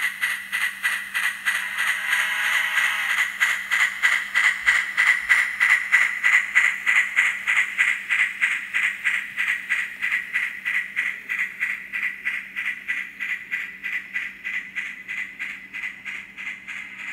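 N scale model train running past, a 4-6-6-4 steam locomotive and RS-1 diesel hauling ore cars: a steady, regular clicking at about three to four a second, over a faint steady hum. The clicking grows louder toward the middle and fades near the end.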